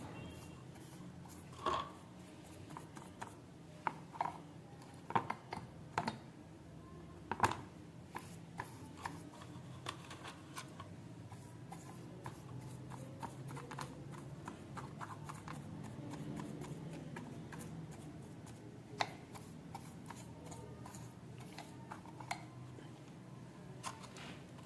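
Light, irregular clicks and taps of small hard objects being handled, over a low steady hum.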